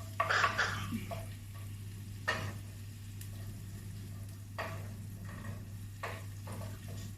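Butter, diced bacon and chopped onion sizzling gently in a pan on low heat, with a spoon stirring and scraping the pan several times.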